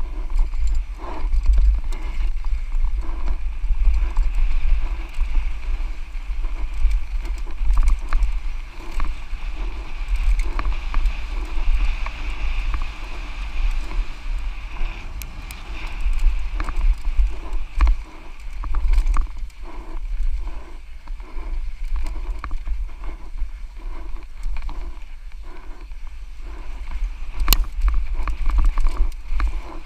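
Santa Cruz Nomad mountain bike descending a rough dirt trail at speed: wind rumbles on the microphone while the bike rattles and knocks over the bumps, with a steady high buzz running under it. There is a sharp click about 27 seconds in.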